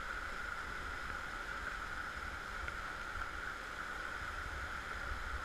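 River rapids rushing, a steady whitewater roar.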